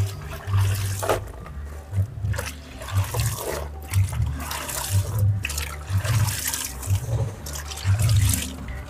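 Water splashing and pouring, with a low pulsing sound underneath.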